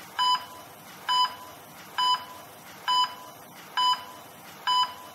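A short electronic beep repeating about once a second, six times, over a steady hiss.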